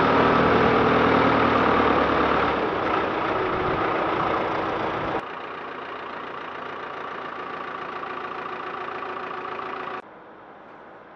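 Hy-Trak rough-terrain forklift engine running steadily, loud for about five seconds, then cutting abruptly to a quieter steady engine sound. About ten seconds in it drops suddenly again to faint background noise.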